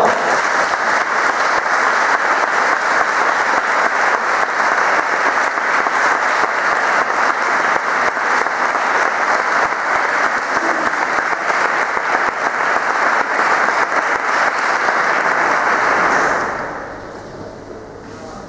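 Audience applauding, a dense and steady clapping that dies away about sixteen seconds in.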